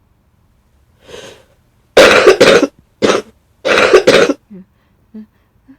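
A person sick with flu coughing: a softer cough about a second in, then a fit of loud, hard coughs in three quick clusters from about two seconds in.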